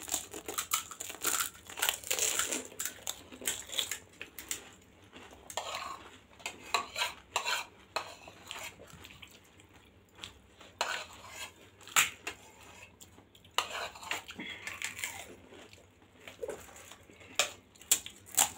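Close-miked eating of pani puri: crisp, hollow puri shells crackling and crunching as they are bitten and chewed, with wet chewing between bites. Scattered sharp clicks and taps run through it, the loudest about twelve seconds in.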